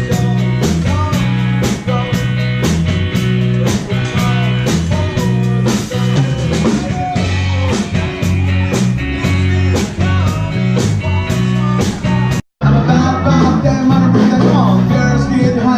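Background music: a rock-style track with a steady beat, bass and guitar, cutting out completely for a split second near the end before resuming.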